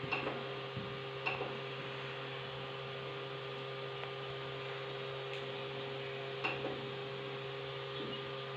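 Steady hum of a 3D printer's fans and power supply, with a few light clicks near the start, about a second in, and about six and a half seconds in.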